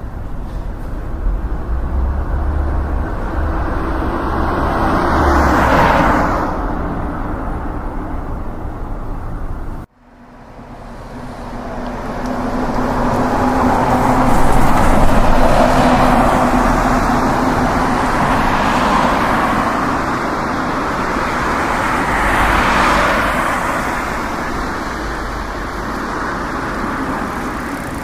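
Road traffic: cars passing one after another, each swelling and fading away. The sound cuts out abruptly about ten seconds in, and the traffic comes back up.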